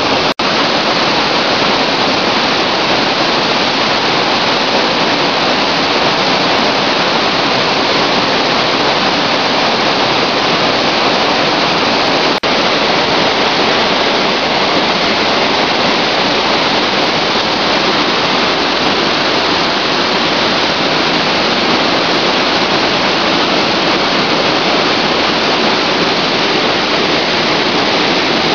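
Flood-swollen mountain torrent rushing loud and steady, its white water tumbling down a stone channel and over weirs.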